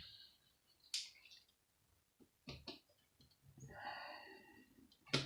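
Scattered clicks and light knocks from a small screwdriver working on a monitor's parts. A soft breathy hiss comes around the middle.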